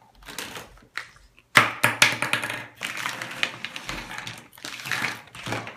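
Hard plastic toy pieces being handled and knocked together: a sharp clack about one and a half seconds in, then steady clicking and rattling.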